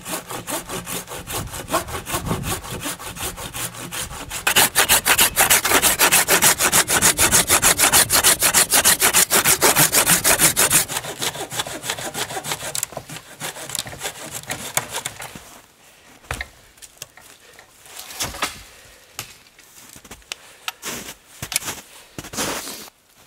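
Hand saw cutting through a dry, dead wooden pole in steady back-and-forth strokes, louder from about four seconds in. The sawing stops about two-thirds of the way through, followed by scattered knocks and crunches as the wood is handled.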